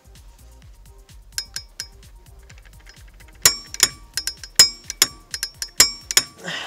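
Click-type torque wrench and socket working the flywheel bolts: a few soft ticks, then from about halfway an irregular run of sharp metallic clicks and clinks, each with a short ring.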